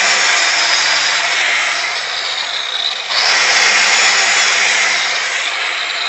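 Angle grinder cutting a refractory brick to size: a loud, steady grinding hiss over the motor's whine. It eases for a moment about three seconds in, then bites into the brick again.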